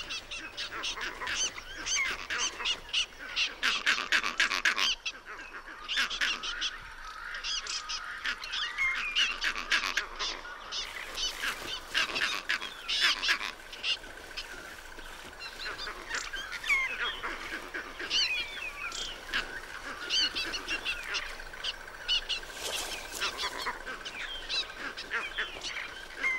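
Many animals, mostly birds, giving overlapping alarm calls: a dense run of short squawks and chatter. A thin steady high tone joins about halfway through. The uproar is raised at a prowling male leopard.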